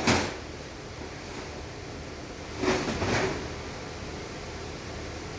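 Handling noises over a steady hiss: a brief scrape right at the start and a longer rustling scrape about two and a half seconds in.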